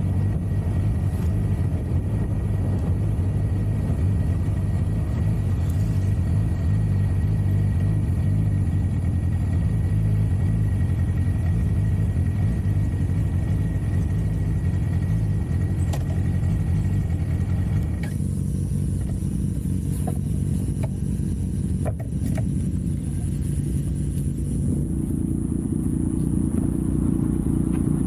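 Motorcycle engine running steadily with wind rush while riding; about eighteen seconds in the wind noise drops away as the bike stops at the roadside, its engine idling with a few light clicks. Near the end a deeper engine sound grows louder.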